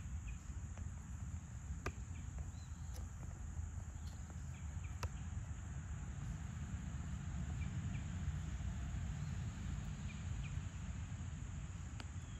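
Steady high-pitched insect drone, with a low rumble underneath and a few faint scattered clicks.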